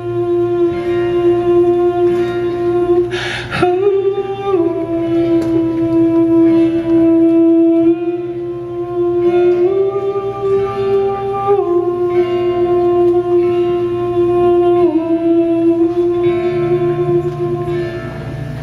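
Live band playing the instrumental outro of a slow folk song: a long held melody line that steps to a new note every few seconds over strummed guitar.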